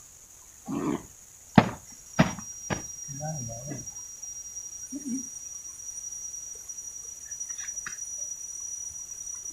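Forest insects, crickets or cicadas, making a steady high-pitched drone. Three sharp knocks come between about a second and a half and three seconds in, and there are a few short low sounds at about one, three and a half and five seconds.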